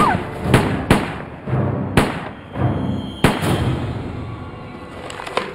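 Gunshots in a film scene: six sharp bangs at uneven intervals over about five and a half seconds, with a low rumble between them. The last bang is fainter.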